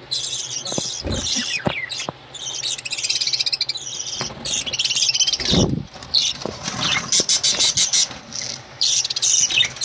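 A flock of budgerigars chattering and chirping continuously in high, dense warbles. Dull low thumps come about one second in and again around the middle.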